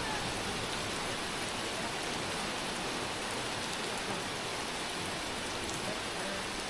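Steady rain falling, an even patter of drops on the ground.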